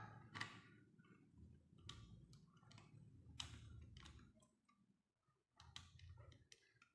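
Faint, scattered clicks and taps of plastic tripod parts being handled, as a phone holder is fitted and adjusted on the tripod.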